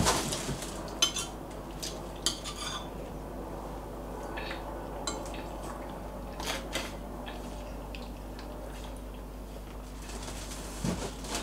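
Spoon and fork clinking and scraping on a dinner plate while eating: a handful of scattered short clicks, several in the first few seconds and a couple more around the middle.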